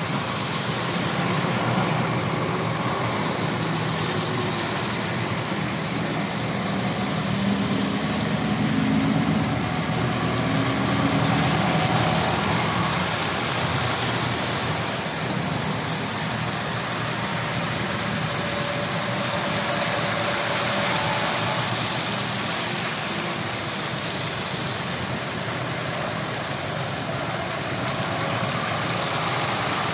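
Heavy lorries' diesel engines running as the trucks pull slowly past, a steady low rumble with a few engine notes rising and falling, over tyre hiss on wet tarmac.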